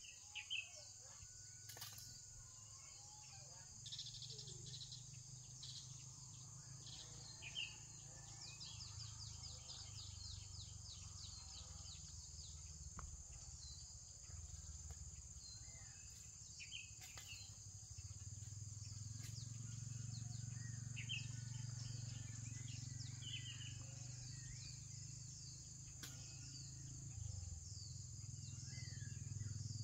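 Insects shrilling steadily at a high pitch, with scattered short bird chirps and a rapid trill about a third of the way in. Underneath runs a low rumble that swells in the second half.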